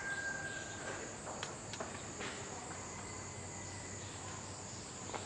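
Insects chirring in a steady, high-pitched drone, with a faint steady tone in the first second and a few faint clicks in the first half.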